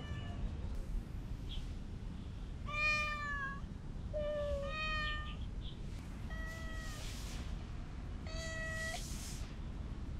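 A black cat meowing repeatedly: about five meows spread over several seconds, each under a second long, over a low steady rumble.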